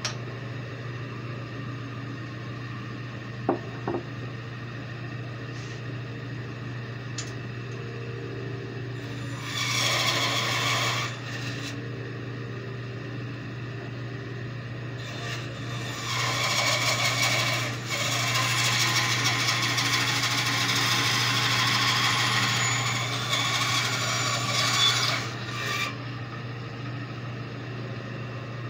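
Benchtop bandsaw running with a steady motor hum, its blade cutting through small wooden carving blanks. The cutting comes in two stretches: a short one about a third of the way in, then a longer one of about ten seconds in the second half.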